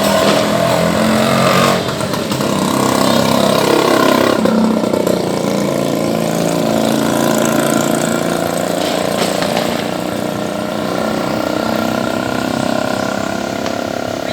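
Motorcycle engines running, their engine note rising and falling.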